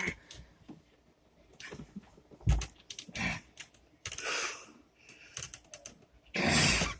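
Straining arm-wrestling bout: scattered clicks, knocks and rustles of hands, arms and the table, with a few short noisy bursts. The loudest moments are a sharp thump about two and a half seconds in and a longer noisy burst near the end.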